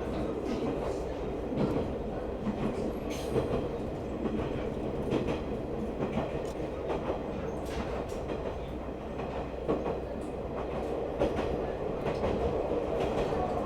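Diesel railcar running along the line: a steady engine drone with scattered clicks and knocks of the wheels over the rail joints.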